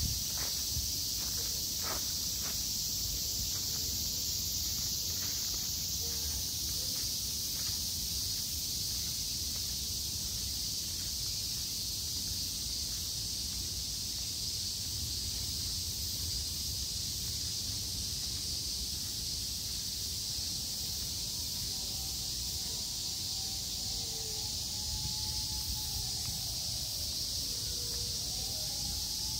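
Steady high-pitched chorus of insects over a low, even rumble, with a few light ticks in the first seconds.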